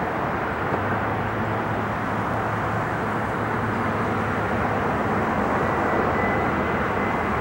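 Jet engines of a Boeing 767 freighter in flight, a steady rushing drone that grows slightly louder, with a faint high whine coming in over the last couple of seconds.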